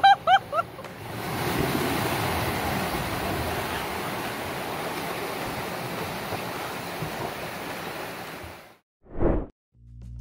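Water gushing out of a breached above-ground swimming pool and flooding across the ground: a steady rushing noise that cuts off abruptly near the end. A few short, high cries come in the first second.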